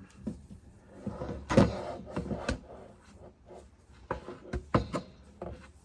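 Handling noise from a plastic surge protector and its heavy-duty power cord being unwound: irregular knocks and rustles, the loudest about a second and a half in.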